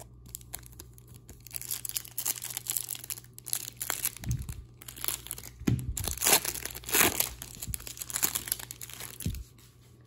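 Foil trading-card pack wrapper crinkling and tearing as hands pull it open and slide the cards out, in irregular crackles that thicken through the middle and stop shortly before the end.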